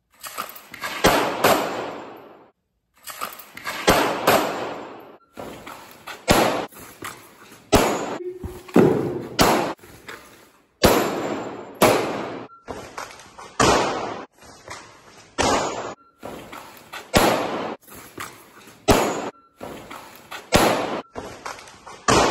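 Rifle and pistol gunshots fired in quick pairs and short strings, about two dozen in all, each with a long echo in a brick-walled indoor range, as shooters switch from the long gun to the pistol.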